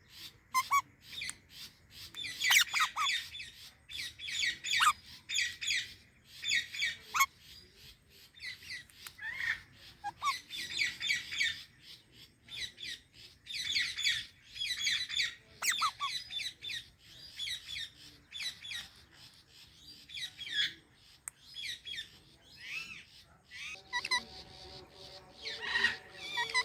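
Psittacula parakeets (Indian ringneck and Alexandrine) giving their natural calls: repeated short, harsh, shrill calls in runs with brief pauses. A steady droning tone at several pitches joins near the end.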